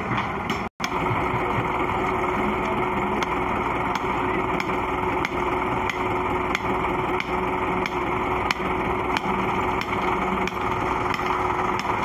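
Concrete mixer truck running near by, a steady dense engine and drum noise with a constant hum tone, and faint regular ticks about every two-thirds of a second.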